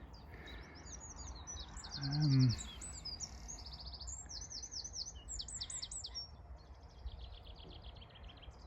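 Eurasian wren singing: a song of rapid, varied high trills lasting about six seconds, followed near the end by a fainter rapid trill.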